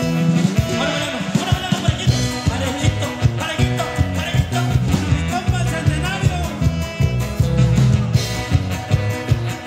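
A live grupero band plays with electric guitars over bass and drums, keeping a steady dance beat.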